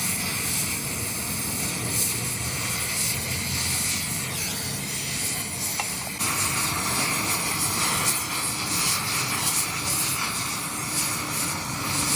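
Steady machine noise with a strong hiss, changing abruptly about six seconds in.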